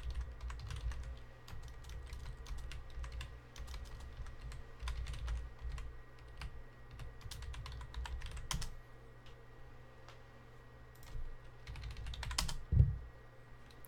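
Typing on a computer keyboard: bursts of quick key clicks, thinning out after about nine seconds, over a low steady hum. A single loud thump comes shortly before the end.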